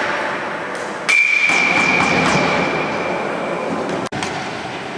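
A sharp metallic clang about a second in, ringing on with one high tone that fades over about two seconds. It sounds like a hard hit on metal at a ball hockey rink, heard over the echoing hall noise.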